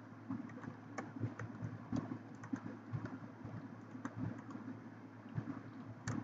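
Computer keyboard being typed on: quick, irregular key clicks, several a second, over a steady low hum.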